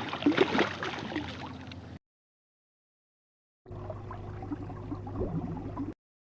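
Water splashing and gurgling, full of small clicks, stops abruptly about two seconds in. After a silent gap, a quieter stretch of bubbling water over a low steady hum starts and cuts off just before the end.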